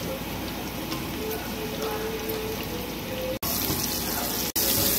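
Diced pork belly frying in oil in a pan, a steady sizzle. After a cut about three and a half seconds in, chopped garlic frying, and from about four and a half seconds in the sizzle is louder and hissier.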